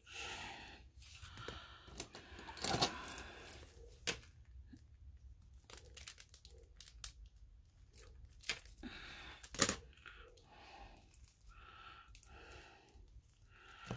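Hands picking at and tearing the clear plastic wrap off a new pen: crinkling rustles and scratches, broken by a few sharp snaps, the loudest about ten seconds in.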